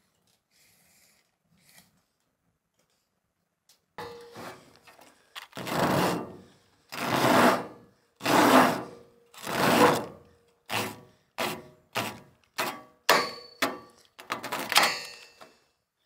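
Handsaw sawing by hand: four long, slow strokes, then a run of quicker, shorter strokes.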